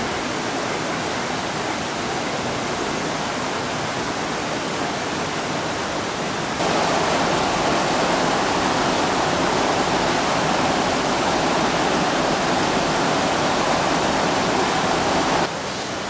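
Rushing water of a small mountain river flowing over rocks, a steady rush that gets louder about six and a half seconds in and drops back just before the end.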